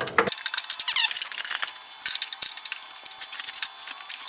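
Hand tool working a stubborn, penetrant-soaked bolt on a truck's front end: quick, irregular metal clicks with a short rising squeak about a second in.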